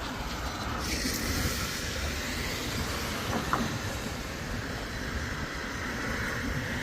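A train passing: a steady rushing rumble that holds on without a break.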